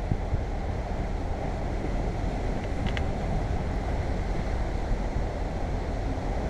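Wind buffeting the microphone over a steady wash of sea surf against rocks, with one faint click about halfway through.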